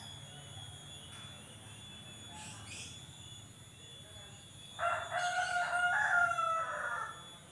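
A rooster crowing once, one long call in several joined parts lasting about two and a half seconds, starting about five seconds in.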